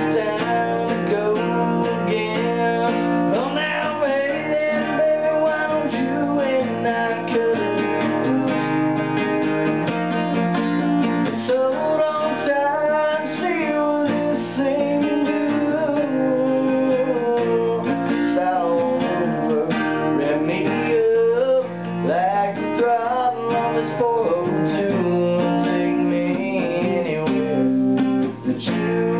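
Steel-string cutaway acoustic guitar strummed and picked continuously, with a man's singing voice coming in at times.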